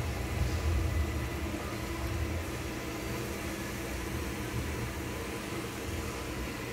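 Ecovacs Deebot OZMO T8 AIVI robot vacuum-mop running during a combined vacuum and wet-mop pass on hardwood: a steady motor hum over a low rumble.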